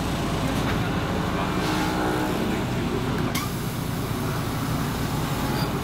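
Scania MaxCi low-floor city bus idling at a stop, heard from inside the cabin: a steady engine rumble, with one short sharp knock about three and a half seconds in.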